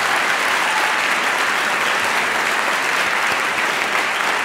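A large seated audience applauding steadily.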